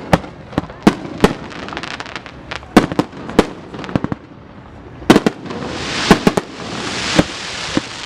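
Fireworks going off: an irregular string of sharp bangs and pops, with a hissing, crackling spray building up from about five and a half seconds in and fading near the end.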